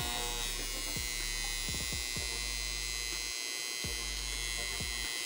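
Energized AC electrical contactor buzzing steadily with a strong mains-frequency hum, its magnet vibrating instead of closing cleanly, with a few short clicks. It is a very strange noise, which the repairer puts down to scorched contacts that may be seated unevenly, so the contactor does not make proper contact.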